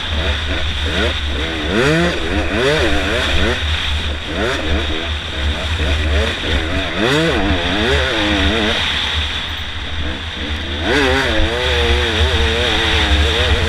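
Dirt bike engine revving up and falling back again and again as the rider accelerates, shifts and backs off, steadier near the end, over a constant low rumble of wind on the helmet camera.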